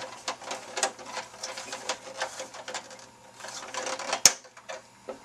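Hard plastic toy parts clicking and rattling as a missile is worked loose from its mount on a 1988 G.I. Joe Rolling Thunder vehicle, with one sharp snap about four seconds in.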